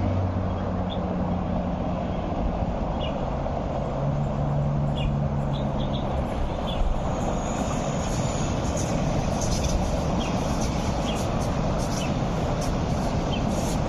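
Steady rushing rumble of an MTR R-train, a Hyundai Rotem electric multiple unit, running at speed along the line, mixed with passing road traffic. A low hum sounds in the first half, and scattered faint clicks come near the end.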